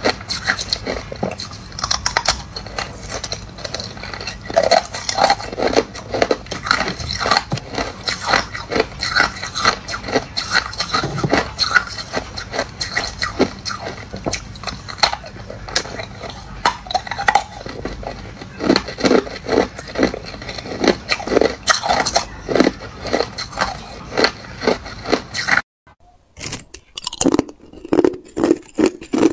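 Hard ice being bitten and chewed close to the microphone: a fast, uneven run of sharp crunches and cracks. A moment before the end the sound cuts out briefly and the crunching resumes in a different recording with less background hiss.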